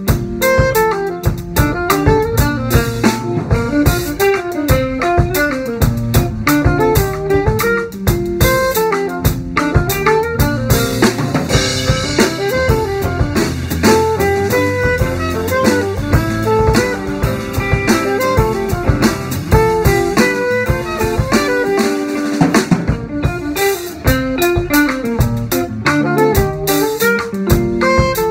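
Small jazz group playing: guitar lines over a busy drum kit.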